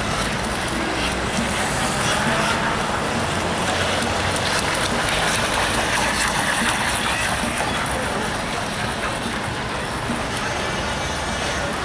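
Steady outdoor noise, a constant hiss with a heavy low rumble, with faint voices of people in the background.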